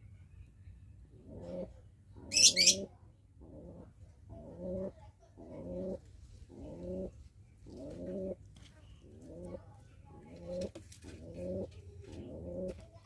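Domestic pigeon cooing in courtship, a run of low coos repeating about once every second and a bit. A brief, loud, high-pitched noise cuts in about two and a half seconds in.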